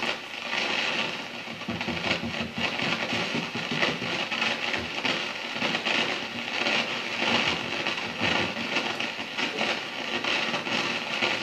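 Fender Super Reverb tube amp hissing and crackling through its speaker with its volume controls all the way down, irregular pops over a steady noise while its tubes are checked for sensitivity. The technician suspects the output tubes or the phase inverter stage rather than the preamp, since the noise stays with the volume turned down.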